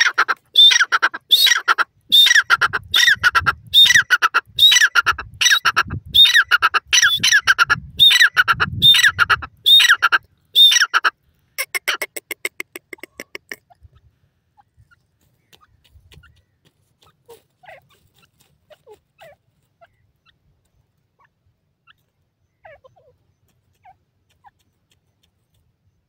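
Grey francolin calling: a loud, harsh call note repeated about twice a second for roughly the first eleven seconds. It ends in a quick run of short clicking notes about halfway through. After that only faint scattered ticks remain.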